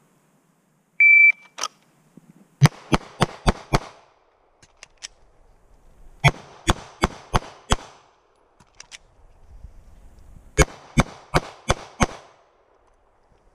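Shot timer beeps once, then a pistol fires three quick strings of five shots with a pause for a magazine reload between strings: two-handed, then strong hand only, then weak hand only. The three strings come at roughly a third of a second between shots, the last string ending about eleven seconds after the beep.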